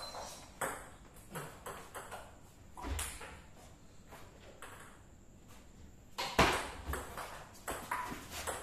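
Table tennis ball clicking back and forth off the paddles and the table during rallies. There are sharp, irregular hits in the first three seconds, a quieter spell, then a quicker run of louder hits from about six seconds in.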